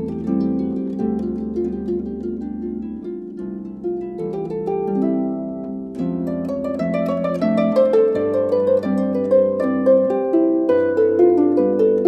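Solo concert harp playing an instrumental piece: plucked melody and chords over ringing bass notes, the notes growing busier and a little louder about halfway through.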